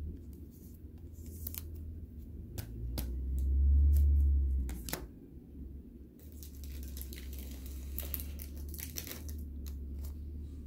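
Foil trading-card pack being torn open and its wrapper crinkled, with scattered sharp clicks and rustling of cards being handled. A low rumbling bump swells and fades around four seconds in, the loudest thing here.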